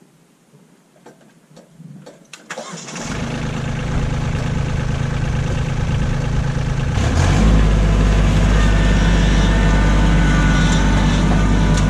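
Kubota LX2610 compact tractor's three-cylinder diesel engine being started. A few clicks come first, then the engine catches about three seconds in and runs steadily, getting louder from about seven seconds in.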